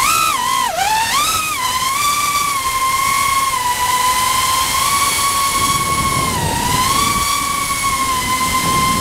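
FPV quadcopter's brushless motors and propellers whining in flight. The pitch swoops up and down several times in the first two seconds as the throttle changes, then holds a steady high whine with a brief dip about six and a half seconds in.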